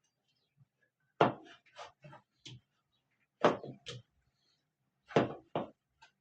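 Several sharp knocks and thumps of kitchen work, a second or two apart, with two close together near the end.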